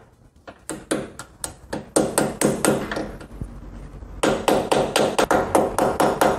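Steering-head bearing race being hammered into the steering head of a Pulsar 200 NS frame: metal striking metal with a short ring after each blow. It starts with light, spaced taps, and from about four seconds in the strikes come faster and louder, about four a second.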